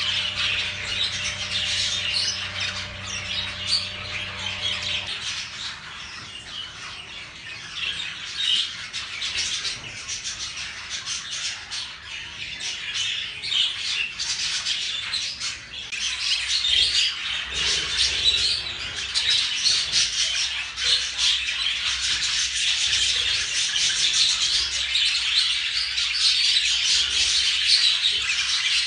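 Budgerigars chattering and chirping continuously, a dense twitter of many quick calls. A low steady hum underneath stops abruptly about five seconds in.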